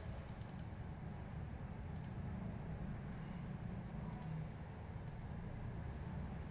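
Scattered sharp computer mouse clicks as drawing tools and a colour are picked in a paint program: a quick cluster at the start, then single clicks every second or two. Under them runs a steady low background hum.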